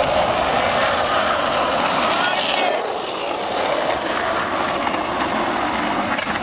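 Skateboard wheels rolling steadily over asphalt, a continuous rough hiss.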